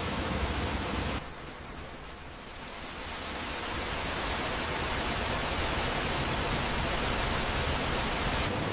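Steady rushing water with no distinct events. It drops suddenly about a second in and builds back up over the next two seconds or so.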